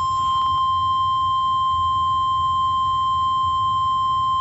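NOAA Weather Radio warning alarm tone: a single steady, loud 1050 Hz tone held without a break, the signal that a warning message is about to follow.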